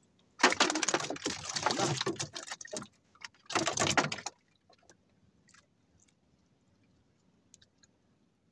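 Two loud bursts of rustling, clattering noise, the first about two and a half seconds long and the second under a second, then near quiet with a few faint clicks.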